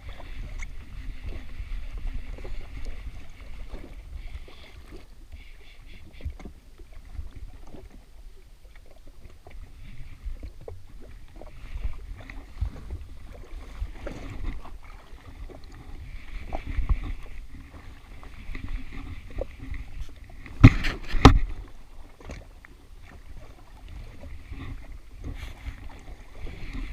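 Water slapping against a jet ski's hull and wind on the microphone while an overhead fishing reel is cranked in on a hooked fish. About 21 seconds in there are two loud knocks close together.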